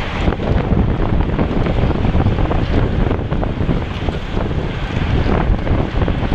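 Loud, irregular wind buffeting on an action camera's microphone, a rumbling rush with no steady tone.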